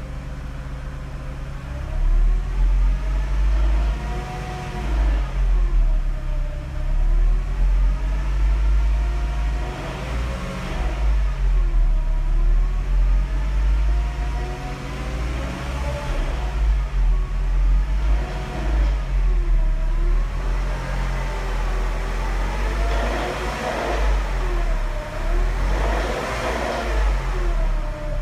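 Mercedes-Benz SLK 200 (R170)'s supercharged M111 four-cylinder engine revved up and down over and over, with whining tones that rise and fall with the revs. This is the strange noise the owner is showing from the engine.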